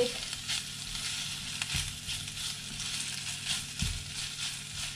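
Beef, egg and vegetables sizzling steadily in a hot frying pan while a spatula stirs and scrapes through them, with a couple of knocks of the spatula against the pan.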